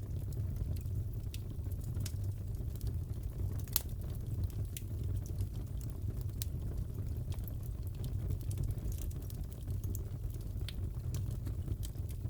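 Crackling fireplace: a steady low rumble of the fire with scattered sharp pops and crackles, the loudest pop about four seconds in.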